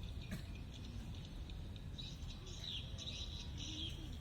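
Birds chirping, with short, high, sweeping calls that come thickest in the second half, over a steady low rumble.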